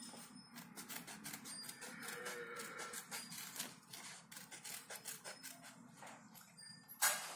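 Scissors snipping through thin paper along a traced circle, with the sheet rustling as it is turned; a louder rustle of paper near the end.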